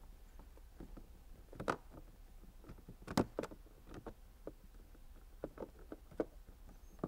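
Plastic battery panel of a scooter being slid in and settled under the edge of the seat panel: a scatter of light knocks and taps, the clearest about a second and a half and three seconds in.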